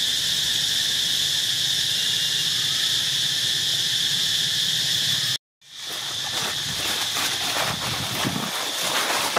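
Insects singing in a steady high chorus. About five seconds in, the sound cuts out for a moment, then the chorus returns quieter, with crackling rustles of dry leaves.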